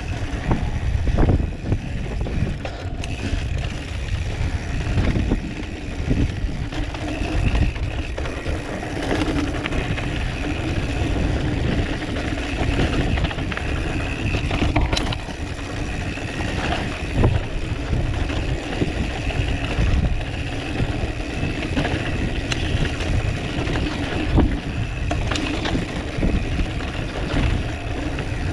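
Mountain bike being ridden on a dirt trail, heard from a camera on the bike or rider: a steady rumble of wind and tyres with a faint steady whir, and scattered knocks and rattles from the bike.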